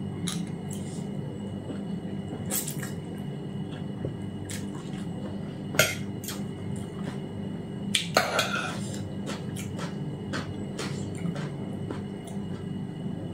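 Metal fork and spoon clinking and scraping against a plate while eating noodles, in scattered short clicks, the loudest about six seconds and eight seconds in, over a steady low hum.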